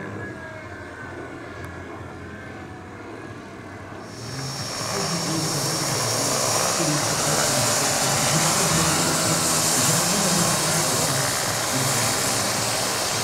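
Model helicopter gas turbine running: quieter low steady tones at first, then about four seconds in a loud hiss with a steady high whistle that holds on.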